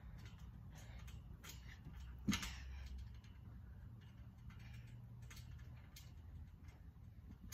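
Trampoline springs and mat creaking and clicking irregularly under a person's steps and light bounces, with one louder knock about two seconds in.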